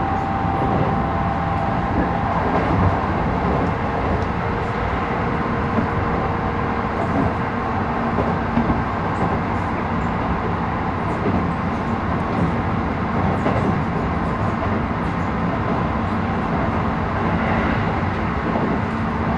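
Running sound of a Keisei 3000 series electric train heard from inside the car: steady rolling noise of wheels on rail. A faint motor whine fades out within the first few seconds as the train runs on.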